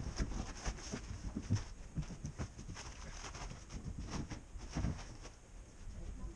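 Irregular footsteps and knocks on a small truck's load bed as sacks of sugar are lifted off a pallet and carried away, the knocks thinning out after about five seconds.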